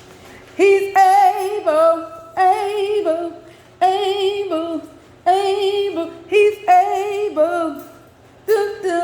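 A woman singing a gospel phrase with strong vibrato, repeated about six times: each time a held note that then steps down.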